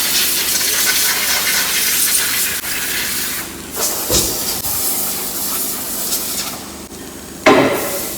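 Compressed-air blow gun hissing in long blasts, blowing brake dust out of the brakes. The blast breaks off briefly about three and a half seconds in, goes quieter near the end, then comes back in one short loud burst.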